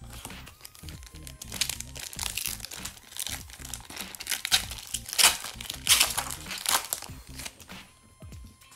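A foil hockey-card pack wrapper being torn open and crinkled by hand, in a run of crackling rustles that are loudest a little past the middle.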